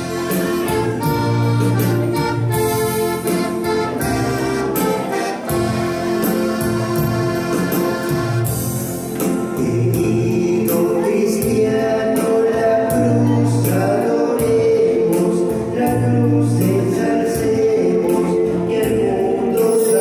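Choir singing a religious hymn with electronic keyboard accompaniment, steady bass notes changing in a regular pattern under the voices.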